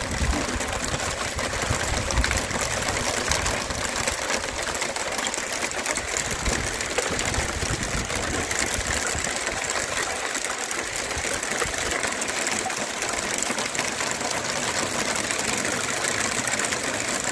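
Hail coming down hard, a dense, steady clatter of countless small hailstones striking hard surfaces.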